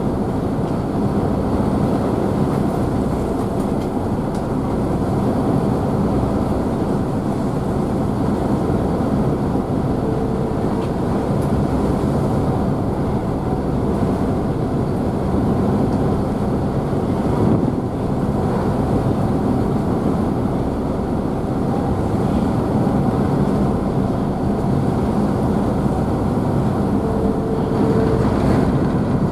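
Car ferry's engines running steadily, a continuous low rumble, mixed with the hiss and splash of the wake churning behind the ship.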